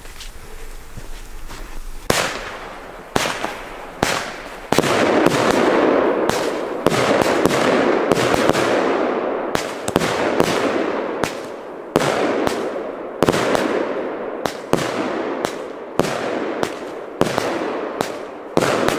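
Firework battery (cake) firing silver-tail shots: sharp bangs start about two seconds in and follow roughly once or twice a second, over a continuous hiss from the rising tails and bursts.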